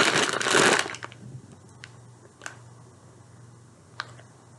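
Clear plastic bag of dry gigli pasta crinkling, the pasta rattling inside as the bag is handled, loud for about the first second. After that only a few faint clicks.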